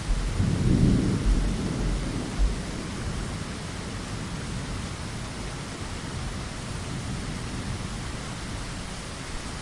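Steady rain against a window, with a low rumble of thunder that breaks in suddenly at the start, peaks about a second in with a sharp jolt near two and a half seconds, and dies away by about three seconds.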